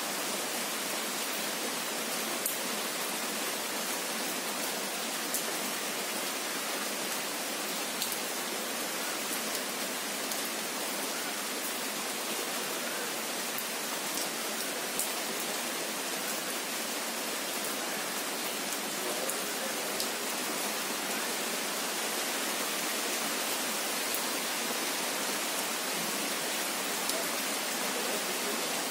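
Steady rain falling, a constant even hiss with an occasional sharp tap of a single drop.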